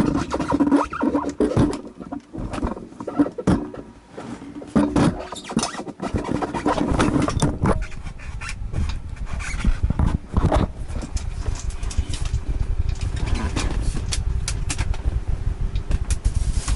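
A 1967 Ford Fairlane GT on the move, heard from inside: engine and road rumble with uneven knocks and rattles over it. The rumble grows steadier from about six seconds in.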